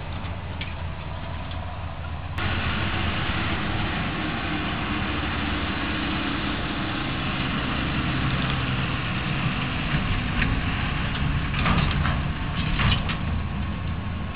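A distant tractor engine drones steadily, then the sound jumps abruptly to a louder, closer one: a Claas Arion 640 tractor pulling two silage trailers running past, with a few clatters from the rig near the end.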